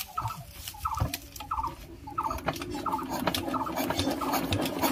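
Kirloskar single-cylinder diesel engine being turned over without firing, a rhythmic stroke repeating about three times every two seconds. The mechanics take it that the engine is getting no fuel, with the governor controller holding the fuel off.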